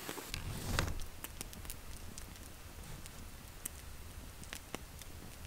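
Campfire crackling: scattered sharp pops over a low, steady background rumble, with a brief soft rustle near the start.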